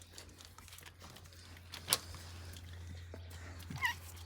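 Faint licking and rustling as one animal grooms another, with a sharp click about two seconds in and a short high squeak near the end.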